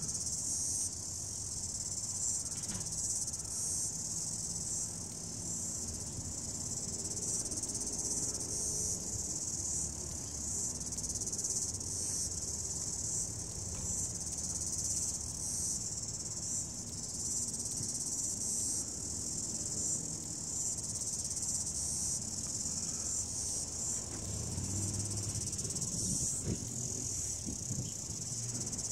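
A steady, shrill chorus of singing insects, one continuous high-pitched drone with a slight flutter, over a faint low rumble.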